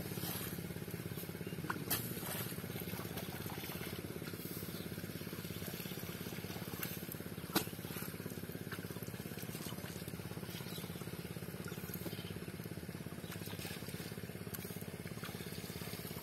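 Rice seedlings being pushed by hand into a flooded paddy, with a few small splashes and clicks of hands in muddy water, about two seconds in and again near eight seconds, over a steady low hum.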